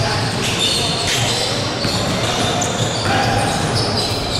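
Live court sound of an indoor basketball game: the ball bouncing and sneakers squeaking on the hardwood floor in short high-pitched chirps.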